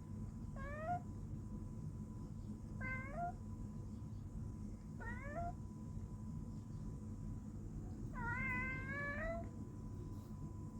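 Domestic cat meowing four times, each call rising in pitch at the end. The first three calls are short; the fourth, near the end, is longer at about a second and a half.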